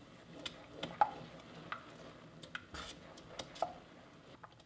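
Silicone spatula stirring a thick tomato mixture in a stainless steel saucepan, with irregular light scrapes and taps against the pot.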